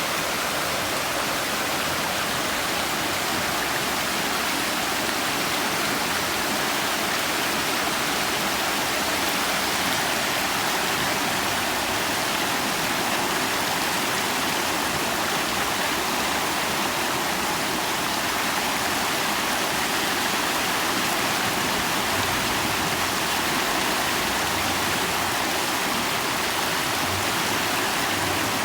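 Flooded creek running high and fast, a steady rush of water with no break; the creek is swollen by storms to the size of a river.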